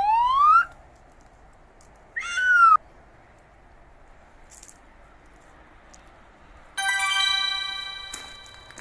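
Edited-in cartoon sound effects: a quick rising whistle-like glide that ends just under a second in, a short bending tone about two seconds in, and a bright ringing chime about seven seconds in that fades away over a second or so.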